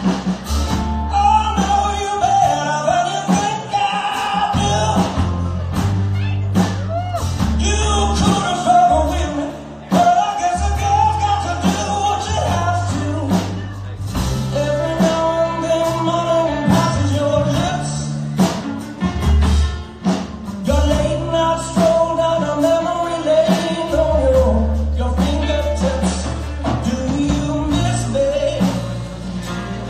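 Live rock band in an acoustic set: a man singing lead over acoustic guitar, electric guitar, electric bass and drums.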